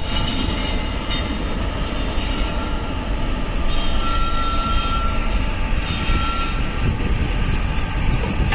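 Twin WAG-7 electric locomotives running past, a loud steady rumble of wheels on rail with the hum of the locomotives, and a thin wheel squeal that comes and goes around four to six seconds in.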